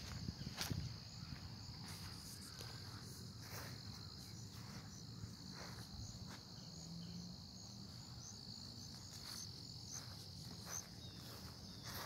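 Steady high-pitched trilling of insects in the grassy pond margin, a continuous chorus. Scattered soft footsteps through grass sound over it at irregular intervals.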